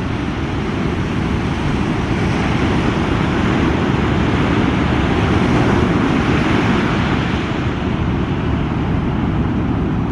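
Breaking surf and wash, a steady noise with wind buffeting the microphone.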